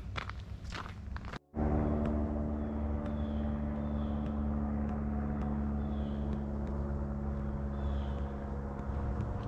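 A few footsteps, then after a brief break a steady, low engine-like hum that holds one pitch without revving.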